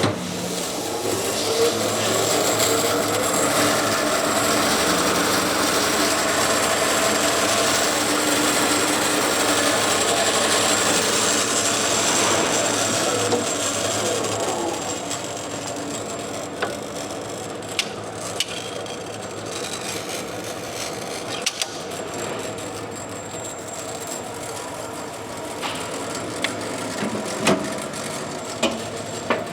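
Delta Model 20 vertical band saw with a three-phase motor, running: its variable-speed drive rises in pitch over the first few seconds and falls again about 12 seconds in, and then the saw runs down to a quieter hum with scattered clicks and knocks.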